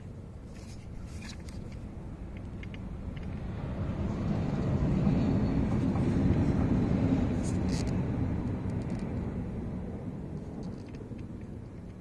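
A passing vehicle's road noise swells to a peak about five to seven seconds in, then fades away. A few light clicks come from the plastic door-switch panel being handled.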